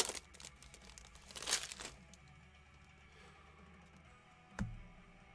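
Foil wrapper of a Mosaic basketball card pack torn open and crinkled for about two seconds, with a sharp rip at the start and a louder crinkle about a second and a half in; a soft knock follows near the end.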